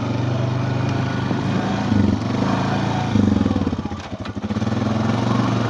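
Small engine of a farm vehicle running steadily while being ridden. It eases off briefly about four seconds in, then picks up again.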